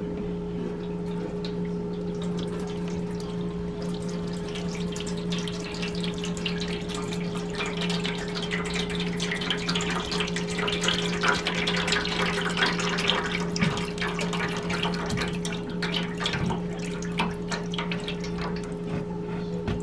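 Electric deep fryer switched on and heating up, a dense crackling and sizzling that swells in the middle of the stretch, over a steady low hum.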